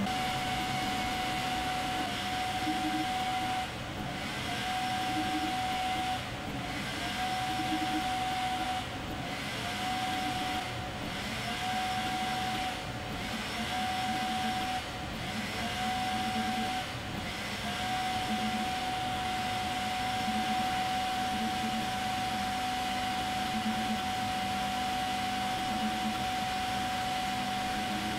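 Creality K1 3D printer running a print: the steady whir of its fans and motors with a steady whine over it. Through the first half or so the whine and the hiss drop out briefly about every two seconds; after that they run on unbroken.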